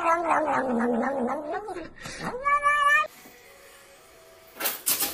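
A domestic cat yowling in a long, wavering call that slides down in pitch while it licks paste from a tube, then a short meow about two and a half seconds in. A few sharp knocks come near the end.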